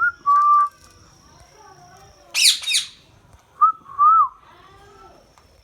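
Indian ringneck parrot giving short whistled phrases, with a loud, harsh double shriek between them about two and a half seconds in.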